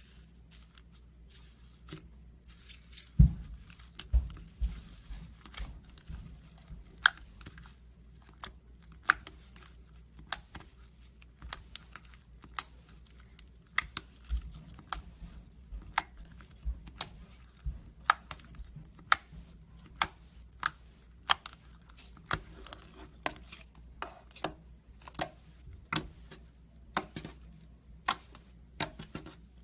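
Slime being squeezed and pressed, giving sharp, crisp clicking pops about one to two a second. The loudest pop, about three seconds in, comes with a low thump.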